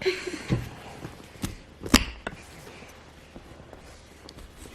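Knife cutting through a chocolate-covered pecan butter tart, with a few sharp knocks of the blade against the surface beneath, the loudest about two seconds in.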